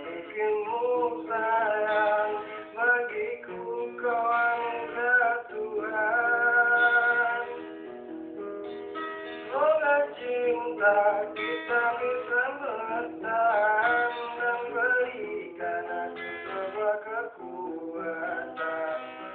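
A song: a voice singing a melody over a plucked-string accompaniment.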